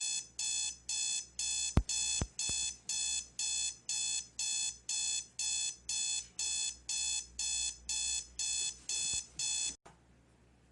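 Electronic alarm clock beeping, a high, shrill beep about twice a second, which cuts off abruptly near the end. A couple of thumps are heard about two seconds in.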